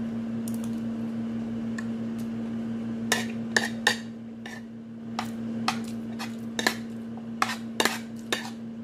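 A metal fork clinking and scraping on a plate, a string of sharp clicks from about three seconds in. A steady low hum runs underneath.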